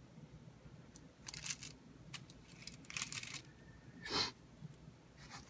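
Quiet handling noises of soap-making work: a few short scrapes and clicks, with a louder brief rustle about four seconds in.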